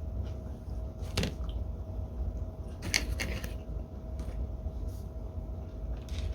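A person chewing a mouthful of pizza: a few short, wet clicky mouth sounds about a second in and again around three seconds in, over a steady low room hum with a faint steady tone.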